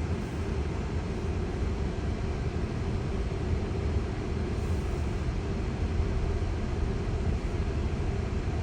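Steady low rumble inside a slowly moving Tesla's cabin: tyre and road noise.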